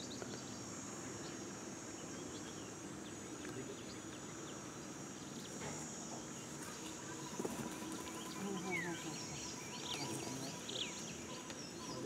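A steady high-pitched drone of insects, with short bird chirps joining in over the second half.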